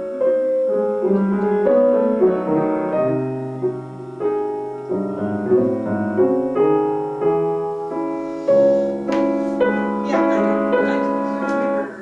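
Two grand pianos playing a classical passage together in chords and running notes, stopping just before the end.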